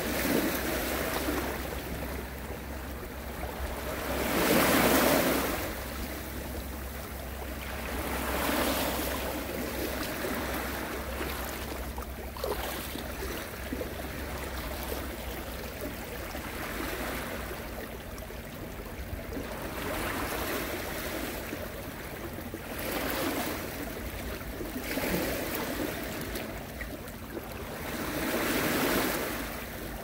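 Ocean waves breaking on a shore, the surf rushing in and washing back in repeated swells every few seconds, loudest about five seconds in.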